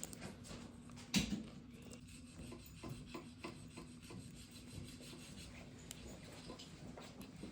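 Hands working focaccia dough, with soft rubbing and scraping and a single thump about a second in.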